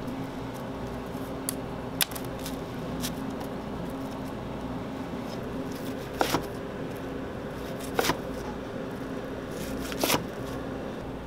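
Chef's knife cutting through a plastic-wrapped sushi roll and knocking on the cutting board: four short knocks about two seconds apart, some doubled, over a steady low hum.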